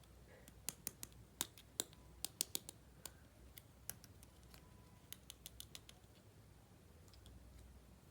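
Sharp little clicks and taps of small plastic toy kitchen pieces being handled, in a quick run of about a dozen for the first few seconds and a shorter run of five or six about two seconds later.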